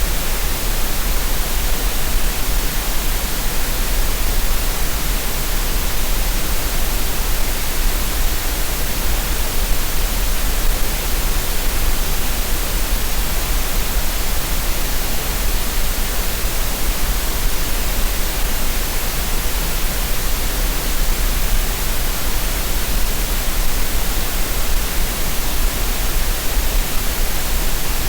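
Green noise: steady, unchanging synthetic hiss spread across the whole frequency range, played for relaxation and tinnitus masking.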